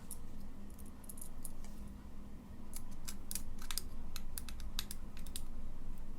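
A run of sharp, irregular clicks and taps from two-way wall switches and wiring being handled and tested, thickest around the middle, over a steady low mains hum.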